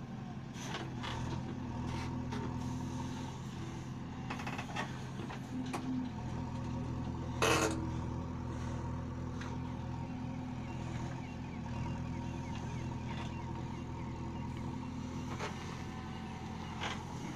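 JCB 3DX backhoe loader's diesel engine running steadily while it digs and loads, with a few sharp knocks and one short louder burst about seven and a half seconds in.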